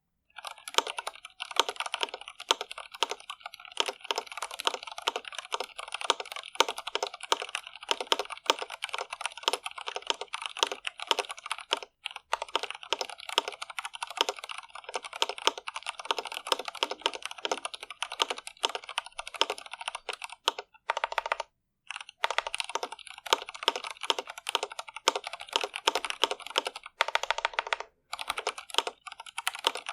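Continuous fast typing on an Iqunix L80 mechanical keyboard with stock Cherry MX Red linear switches: rapid, uneven keystroke clacks several times a second, broken by a few brief pauses.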